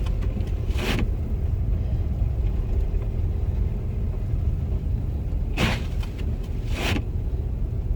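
Steady low road and engine rumble heard inside a car's cabin while driving on a snowy road. Over it the windshield wipers sweep across the glass in pairs, once about a second in and twice more near the end, a pass out and back with a pause between, as on an intermittent setting.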